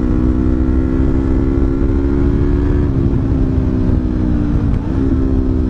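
Yamaha MT-25's 250 cc parallel-twin engine breathing through a Sakura aftermarket muffler, pulling steadily at cruising speed while ridden. The exhaust note holds level, then dips briefly and picks up again near the end.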